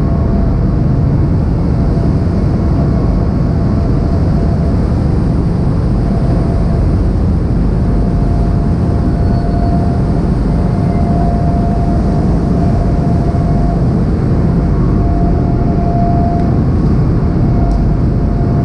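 Steady low drone of a cargo ferry's diesel engines, with a thin, steady whine above it.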